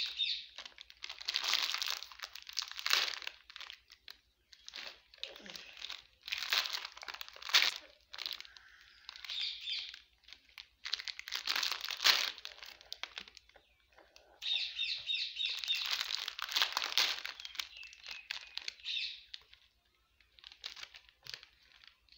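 Plastic snack packet crinkling and rustling as it is handled and torn at, in irregular bursts with short pauses.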